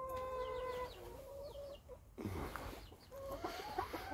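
Chickens clucking and calling, with one long, even call in the first second followed by shorter calls.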